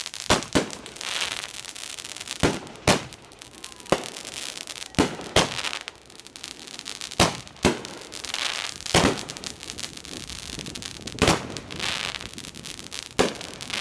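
Aerial fireworks going off: about a dozen sharp bangs at irregular intervals, with a high hiss between them.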